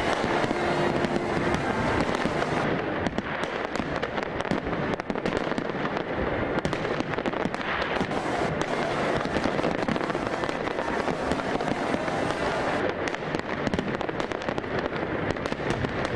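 Fireworks display with many aerial shells and crackling stars going off at once: a dense, unbroken stream of bangs, pops and crackles.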